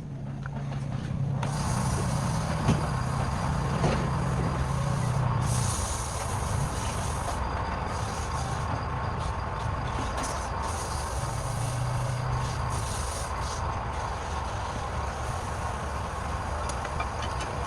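Wood lathe running with a steady motor hum, and from about a second and a half in the hiss of a turning tool cutting the spinning wood.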